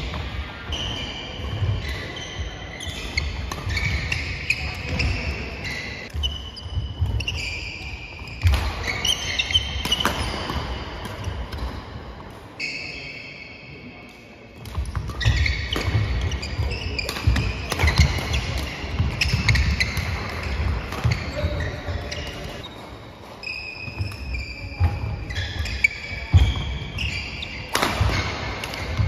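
Badminton doubles rallies on a wooden sports-hall floor: shoes squeaking, feet thudding and rackets hitting the shuttlecock. Play goes quiet for a couple of seconds about halfway through, then starts again.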